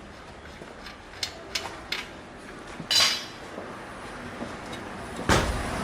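Metal clinks and clanks of tools and parts while a car's rear brake drum and hub bearing are worked loose. A few sharp clicks come first, then a louder clank, then a heavier knock near the end.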